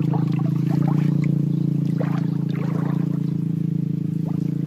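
Steady low drone of a running motor, unchanging throughout, with a few light splashes and trickles of shallow water over it.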